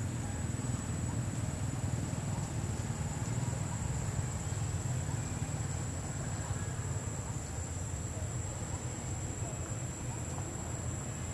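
Steady outdoor ambience: a continuous, even, high-pitched insect drone over a low steady rumble.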